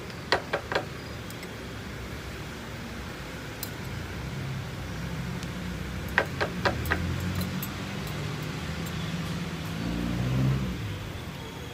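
Metal cupping spoon clinking against ceramic cups while the grounds are skimmed off brewed coffee: three quick clinks, then four more about six seconds later. A low rumble builds underneath in the second half.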